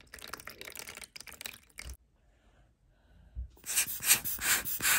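Water poured from a bottle splashing and trickling over a watch dial into a plastic tub. After a short pause comes a hand-squeezed rubber bulb air blower puffing repeatedly, about two or three puffs a second, louder than the water, blowing the wet dial dry.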